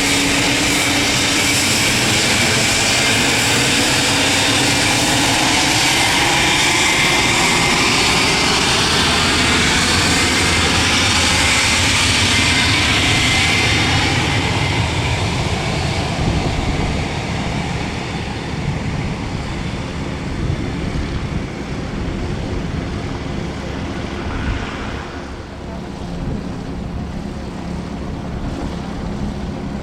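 Twin Pratt & Whitney JT15D turbofan engines of a Cessna Citation II/SP business jet, a loud jet whine and hiss that sweeps in pitch as the jet passes close by. About 14 seconds in it starts to fade, the high whine dying away into a lower rumble as the jet moves off.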